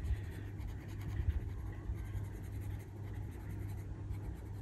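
Pantone oil-based coloured pencil scratching on paper in quick, irregular colouring strokes, over a steady low hum.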